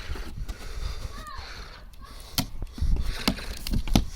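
Lawnmower parts and packaging being handled during unboxing: rustling with several sharp knocks and clatters in the second half.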